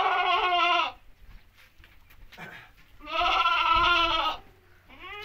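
Beetal goats bleating: two long, quavering bleats, one at the start and a second about three seconds in.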